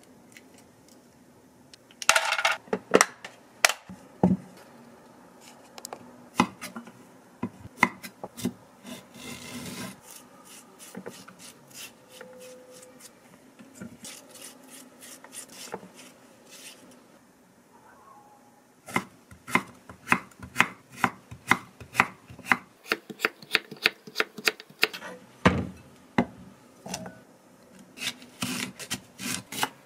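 Kitchen knife chopping cucumber on a wooden cutting board, with an even run of quick strokes through the second half. Earlier come scattered knocks and a spoon scraping the seeds out of a halved cucumber.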